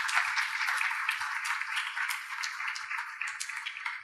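Audience applauding, a dense patter of many hands clapping that thins slightly near the end.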